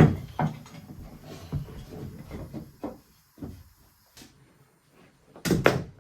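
Wooden car siding boards knocking and clattering as they are handled and fitted: a sharp knock at the start, scattered irregular taps, then two loud knocks in quick succession near the end.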